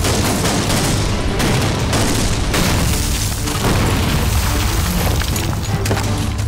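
Aerial bombs exploding: several heavy blasts about a second apart, with a dramatic music score underneath.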